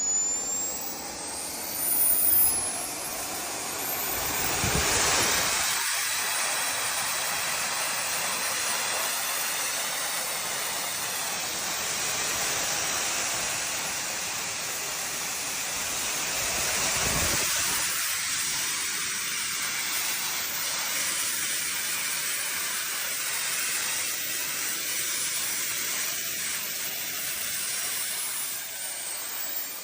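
Industrial-strength blower dryer running steadily at full power, a continuous loud rush of blown air. Two brief low rumbles come about 5 and 17 seconds in.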